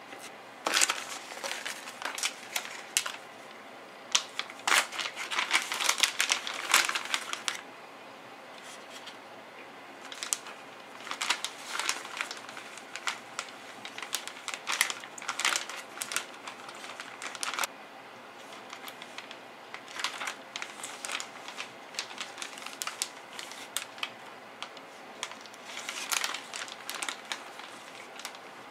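Plastic zip-top freezer bag crinkling in irregular bursts of sharp crackles as whole sardines are laid inside it by hand.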